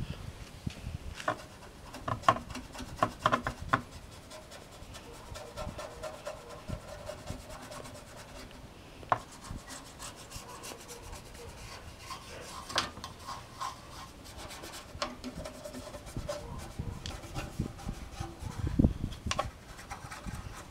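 Toothbrush scrubbing dirt off the back of an old computer case: irregular scratchy rubbing, broken by several sharper knocks and clicks.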